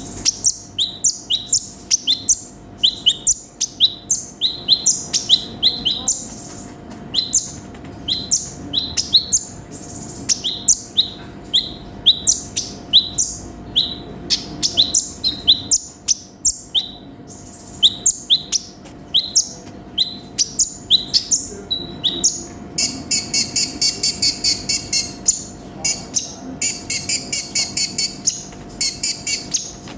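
A sunbird singing in full voice: a steady run of short, sharp, high chirps, several a second. In the last third the chirps give way twice to a fast, buzzy rattling trill.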